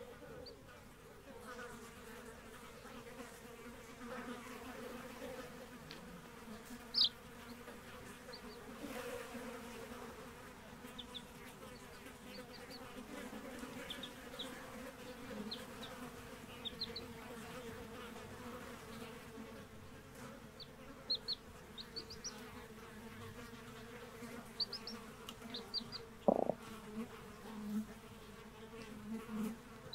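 Newly hatched chicks peeping in short, high, scattered chirps, singly and in little runs, over a steady buzzing hum. There is a soft knock near the end.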